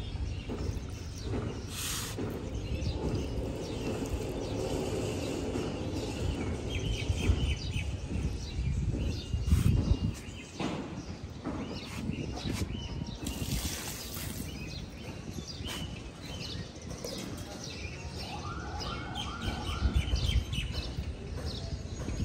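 Small birds chirping and calling again and again, over a steady low rumble.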